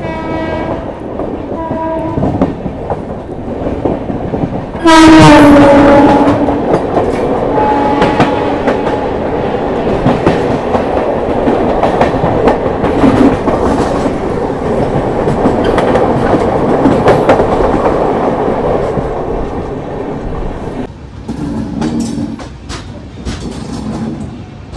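Train running fast, heard from an open coach doorway: wheels clattering on the rails and wind rush, with a train horn sounding. There are short toots at the start, then a loud, long blast about five seconds in that drops slightly in pitch. The clatter stays loud and dense for about fifteen seconds, then eases near the end.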